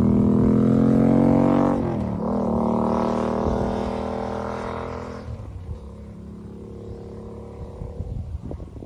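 Motorcycle engine accelerating away, its pitch climbing, with a gear change about two seconds in. It then fades steadily into the distance as the bike rides off.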